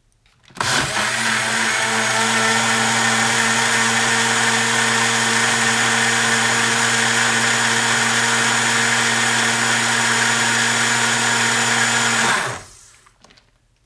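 Small electric mixer blending protein powder with water: its motor runs loud and steady at one pitch for about twelve seconds, starting abruptly just under a second in and cutting off near the end.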